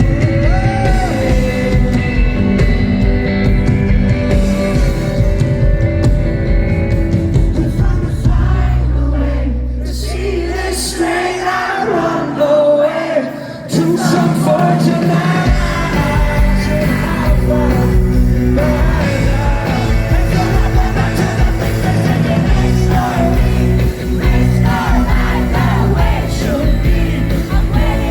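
Live rock band playing with a lead vocal. About 9 seconds in the bass and drums fall away into a sparser break, and the full band comes crashing back in about 15 seconds in.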